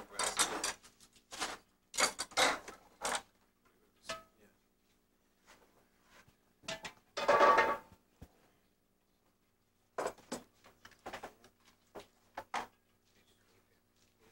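Kitchen clatter: stainless-steel bowls and utensils knocked and scraped on a work counter in short, irregular bursts, with one longer, ringing scrape about halfway through.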